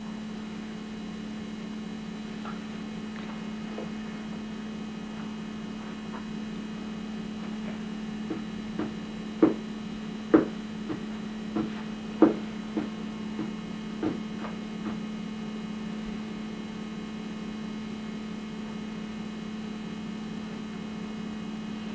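Steady electrical mains hum, with a run of about a dozen short knocks midway from a small wooden bench being handled on the floor.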